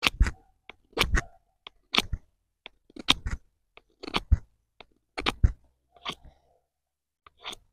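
Fixed-blade bushcraft knife carving a small wooden stick: about ten short, crunchy cutting strokes, roughly one a second, some in quick pairs. The blade, in the carver's view, tends to slip on the wood.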